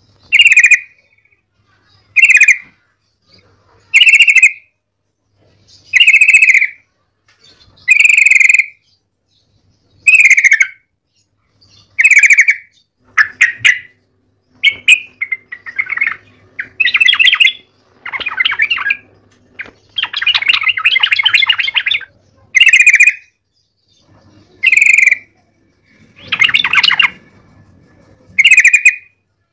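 Yellow-vented bulbul calling loudly: short phrases about every two seconds, breaking midway into a longer run of rapid chattering notes, then back to the spaced calls.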